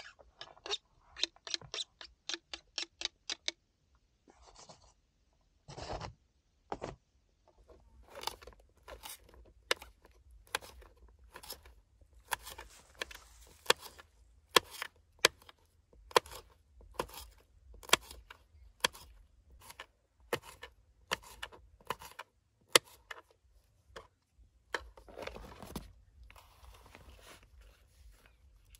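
Knife chopping green chillies on a plastic cutting board: sharp knocks, roughly one to two a second, with a quick run of faster taps in the first few seconds.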